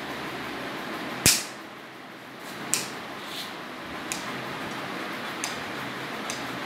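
Dog nail clippers snipping a golden retriever's nails: one loud, sharp snip about a second in, then about six fainter, crisp clicks spaced roughly half a second to a second apart.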